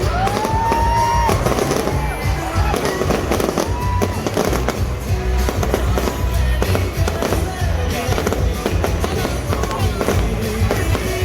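Fireworks going off in rapid bangs and crackles over loud music with a heavy bass beat.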